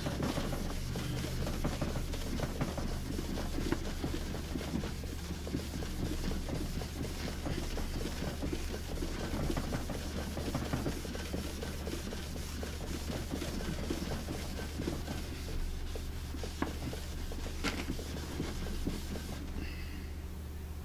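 A gloved hand rubbing Howard Restor-A-Finish hard into a wooden radio cabinet top, giving continuous back-and-forth scrubbing. A steady low hum runs underneath.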